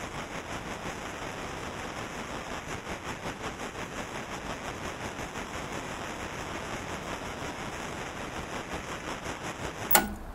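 Steady hiss of static noise, flickering slightly in level, with a short sharp burst near the end before it fades out.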